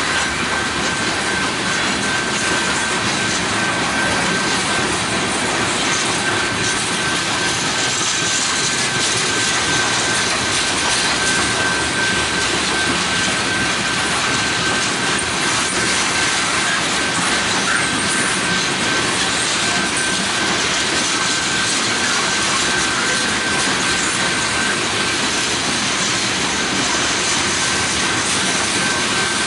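Covered hopper cars of a freight train rolling past close by: a steady rush and rumble of wheels on rail, with a thin high tone held throughout.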